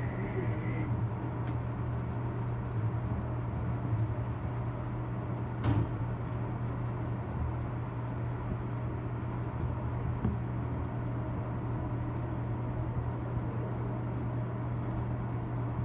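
Steady low hum of an underground subway station and tunnel, with a single sharp click a little under six seconds in.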